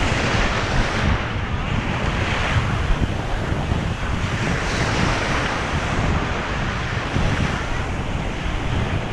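Ocean surf breaking on a beach, with wind buffeting the microphone as a steady low rumble.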